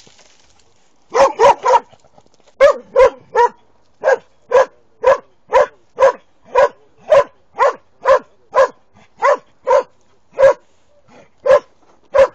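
A year-old Posavac hound (Posavski gonič) baying at a wild boar in training. A quick run of three barks comes about a second in, then steady barks at about two a second.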